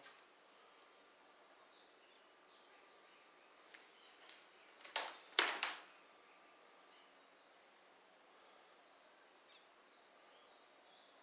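Quiet room tone with a steady faint high-pitched whine and a few faint chirps, broken by two short sharp knocks about five seconds in.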